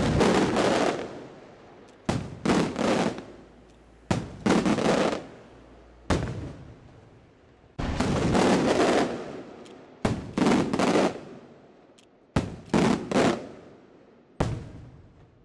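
Aerial fireworks shells bursting overhead: a string of loud bangs, one every two seconds or so, some in quick doubles and triples, each trailing off over a second or two.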